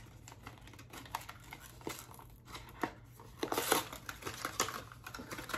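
Paper packaging and a small cardboard product box being opened and handled, a run of short crinkling rustles that grows louder about three and a half seconds in.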